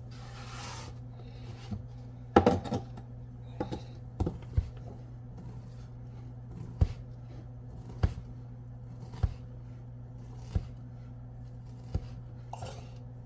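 Kitchen knife chopping deli-sliced chicken on a cutting board: a quick cluster of knocks about two seconds in, then single knocks about every second and a quarter, over a steady low hum.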